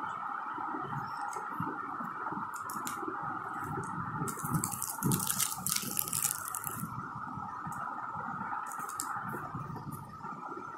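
Plastic packaging crinkling and rustling as wrapped stationery is handled, with scattered small clicks and a louder stretch of crackling about four to seven seconds in.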